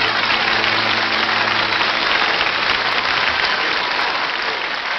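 Studio audience applauding, with the band's last held chord fading out beneath it during the first two seconds; the applause begins to die away near the end.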